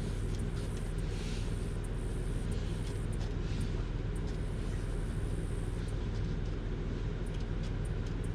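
A motor running steadily, a constant low hum with no change in pitch or level.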